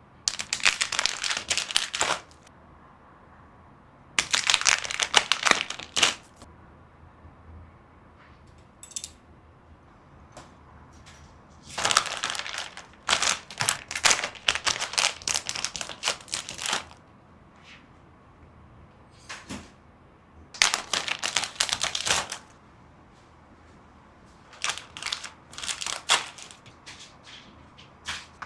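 Plastic packaging crinkling and crackling as it is handled, in five bursts of a second or more separated by quiet pauses.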